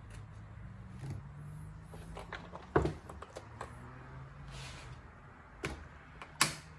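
Chainsaw being handled: scattered clicks and knocks of its parts and cover, with two sharper knocks about three seconds in and near the end, over a faint low hum.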